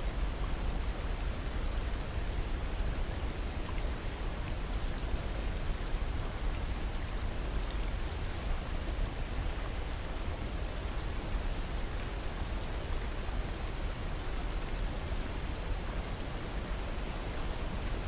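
Whitewater river rushing over boulders below a waterfall: a steady, unbroken noise of water, heaviest in the low end.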